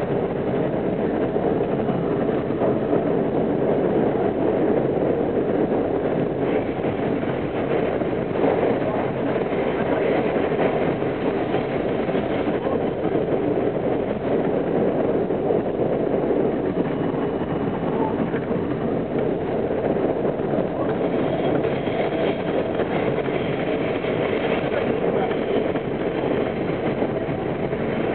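An R42 subway train running through a tunnel, heard from inside the car: a steady rumble of wheels on rails. A faint high squeal joins about two-thirds of the way through.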